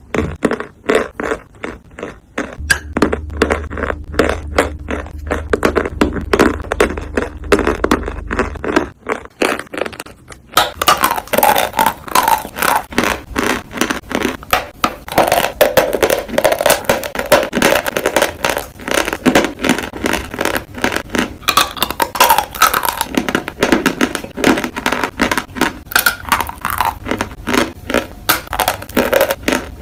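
Chalk being bitten and chewed close to the microphone: fast, repeated crunching and grinding. A low hum runs under the first part. About ten seconds in, the sound changes to louder, denser chewing.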